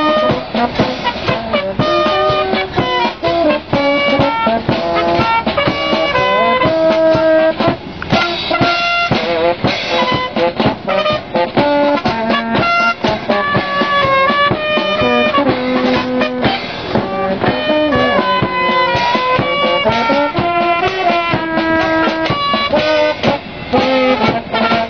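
Brass band playing a tune: trumpet and a larger brass horn carry a changing melody over bass drum beats and cymbal clashes.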